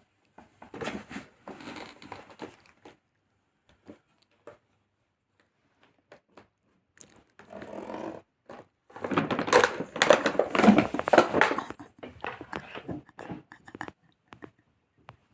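Packaging being handled and crinkled during unboxing, in irregular rustling bursts with a few small clicks; the longest and loudest crinkling comes from about nine to twelve seconds in.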